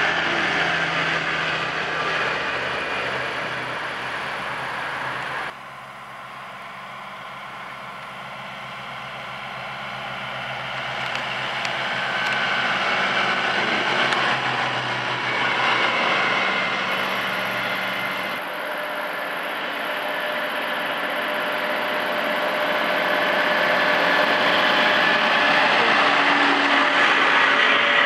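Farm tractors driving past on a road one after another: a red tractor towing a trailed sprayer, then a Claas tractor. Diesel engine and tyre noise swells and fades as each goes by, with abrupt changes about five seconds in and again past halfway where one clip cuts to the next.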